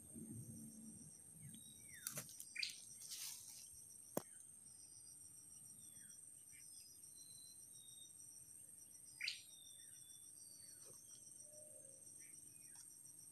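A faint, steady, high-pitched chorus of insects trilling. A few short rustles and sharp clicks between about two and four seconds in, and one louder swish near nine seconds, come from hands working twigs and string.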